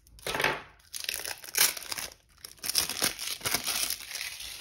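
Clear plastic wrapping on a sealed pack of trading cards crinkling and tearing in a string of rustling bursts as it is slit open with a knife and the cards are pulled out.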